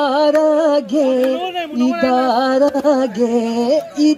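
A man singing solo into a handheld microphone, holding long, wavering notes between short breaths.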